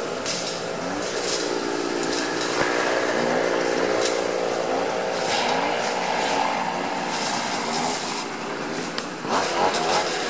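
A motor engine running some way off, growing louder over the first few seconds and fading away again.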